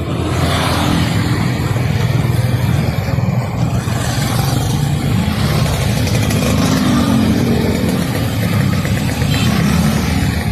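Busy street traffic: motorcycles and cars running past in a steady, loud mix.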